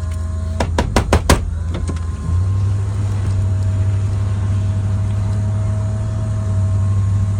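Heavy pickup truck engine idling, heard from inside the cab, with four quick clicks about a second in. A little after two seconds the engine note steps up slightly and then holds steady.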